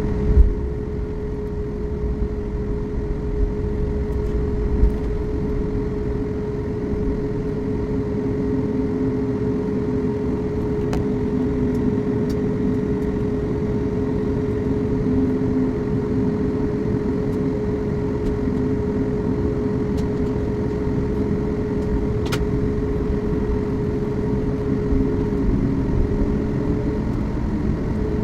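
Steady cabin hum inside a Boeing 737 MAX on the ground before takeoff: a low rumble with a steady mid-pitched drone, and a few faint clicks.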